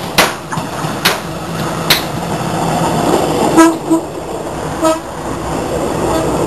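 PNR diesel multiple unit passing close by, its rumble growing as it goes past. A horn gives two short toots, about three and a half and five seconds in, and there are a few sharp clacks in the first two seconds.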